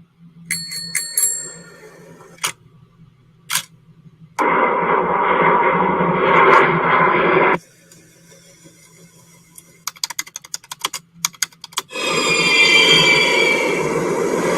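A string of library sound effects and ambiences that switch abruptly every few seconds: a bicycle bell ringing several times near the start, then scattered clicks, a stretch of steady noise that cuts off sharply, a quick run of clicks, and finally noise with falling whistle-like tones.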